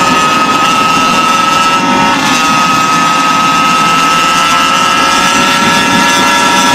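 Modified two-stroke Goped engine with an expansion pipe running hard at high revs, a loud high-pitched drone that climbs slightly in pitch from about two seconds in.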